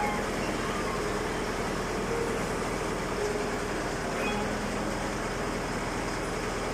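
Small multi-cylinder water-cooled diesel engine (51 hp, type 490) of a crawler excavator running steadily.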